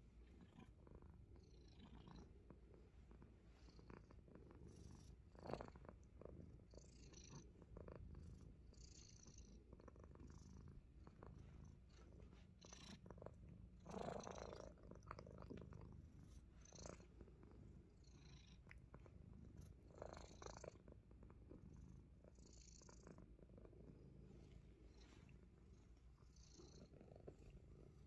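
Himalayan Persian cat purring with a steady low rumble, with scattered soft clicks and rustles and one brief louder sound about halfway through.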